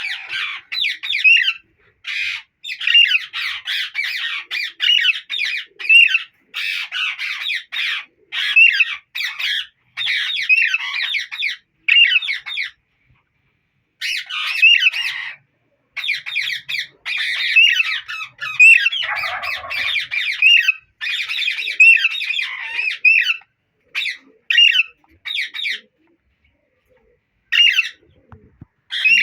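Alexandrine parakeets squawking in runs of loud, harsh, rapidly repeated calls, stopping briefly twice.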